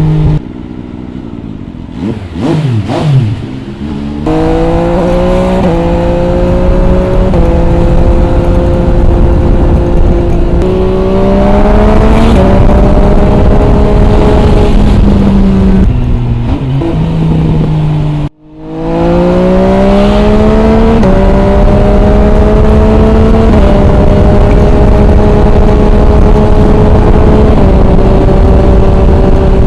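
MV Agusta Brutale 800 RR's three-cylinder engine through an MV Agusta Corse exhaust with the dB killer fitted: the throttle closes early with a spell of crackles and pops, then the bike accelerates through the gears, the pitch rising and stepping down at each upshift. Just after halfway the sound cuts out for a moment, then another hard pull through the gears follows.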